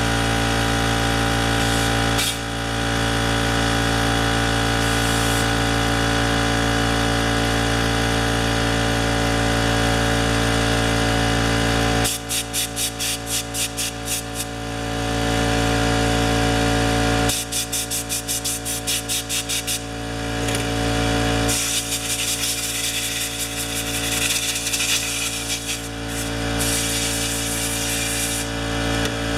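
DeWalt 4-gallon oil-lubricated air compressor running steadily as it builds tank pressure. Twice in the middle a fast pulsing, about four beats a second, runs for a few seconds.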